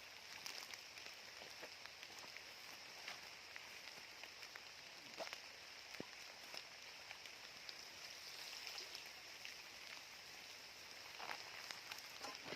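Light rain falling: a faint steady patter with scattered small drip-like ticks.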